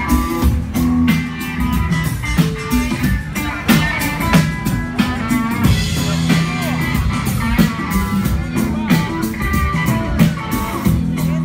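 Live rock band playing through a truck-mounted sound system: electric guitar over drum kit and bass, loud, with a steady beat.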